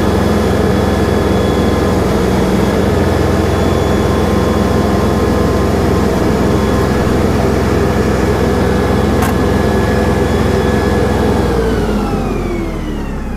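LS MT342 tractor's diesel engine running steadily at raised throttle while it works the front loader. Near the end it throttles down and its pitch falls. There is a single sharp click a little past the middle.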